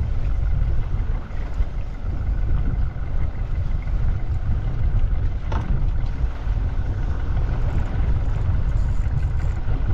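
Steady low rumble of wind on the microphone over a small fishing boat's engine running, with one brief click about halfway through.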